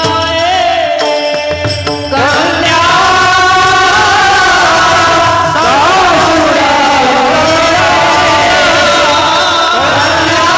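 Devotional kirtan music, sung melody with accompaniment. The first two seconds carry quick percussion strokes; from about two seconds in, long held notes waver and glide.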